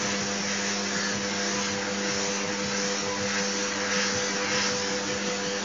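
Vacuum cleaner running steadily, with a constant motor hum under the rush of air, as its nozzle is drawn over a bull terrier's short coat; the hiss of the air swells a little now and then.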